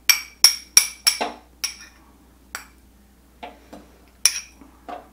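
Metal spoon clinking and scraping against a small ceramic bowl while thick hoisin sauce is worked out of it. There are four quick ringing clinks at the start, then single clinks spaced out over the rest.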